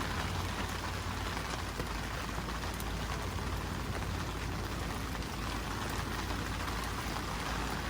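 Steady rain falling, an even patter with a constant low rumble underneath.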